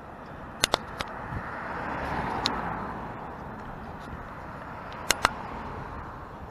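A car passing on the street, its noise swelling to a peak about two seconds in and then fading, over steady street noise, as picked up by an action camera's built-in microphone. A few sharp clicks cut through: a pair near the start, one around two and a half seconds, and another pair about five seconds in.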